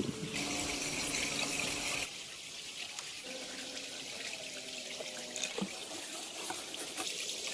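Water trickling and splashing, with a few light clicks and knocks.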